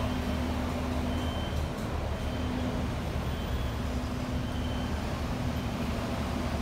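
Road traffic on a busy city street: a steady low rumble of car and bus engines, with a steady low hum.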